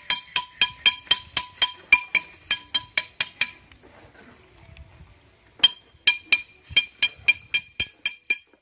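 Rapid, ringing metal clinks from a mason's steel tools striking metal, about four a second. They stop for about two seconds near the middle, then start again.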